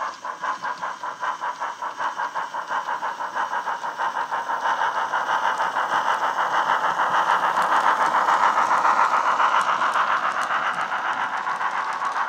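DCC sound decoder in a Hornby Crosti 9F model steam locomotive, playing exhaust chuffs through the model's speaker as it pulls away. The beats come about three to four a second at first, then quicken and blend into one another, growing louder as the loco passes close.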